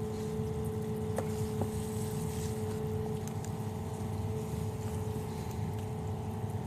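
Tap water running steadily from a faucet while a baby doll is rinsed, with a steady hum underneath and a couple of small clicks.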